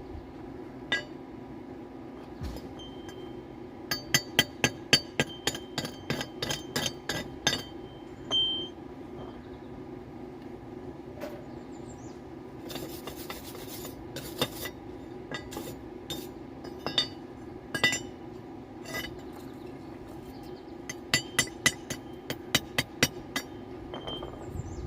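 Light metal-on-metal strikes and clinks on steel round stock, in quick runs of ringing taps, over a steady low hum. A short rasping noise comes about halfway through.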